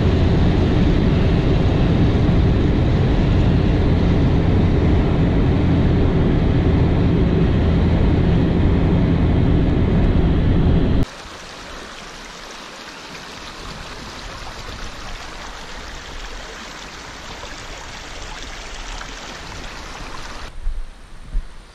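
A car driving, heard from inside the cabin: a steady, loud low rumble of road and engine noise. About halfway through it cuts to a small stream trickling and splashing over rocks, much quieter and hissier, with a few short bumps near the end.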